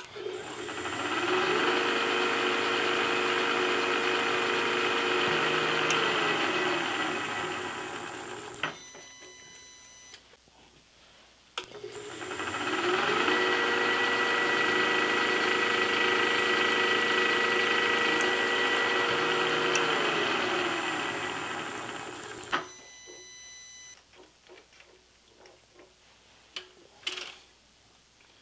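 Milling machine spindle running twice, each time rising in pitch as it spins up, holding steady for several seconds while a twist drill cuts into the metal part with a dense hiss, then falling as it winds down. A few light clicks follow near the end.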